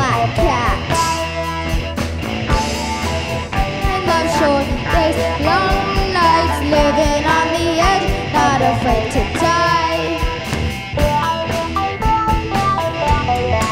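Rock band playing an instrumental break: drums and bass under a lead line that slides and bends in pitch.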